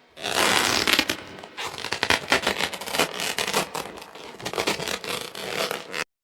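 Tubular bells stand being handled, giving a dense run of scraping and rattling clicks that cuts off suddenly near the end.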